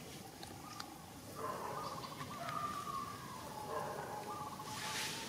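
A high, wavering animal call. It starts about a second and a half in and is held for over three seconds, fluttering at first and then slowly falling in pitch. A short rustle comes near the end.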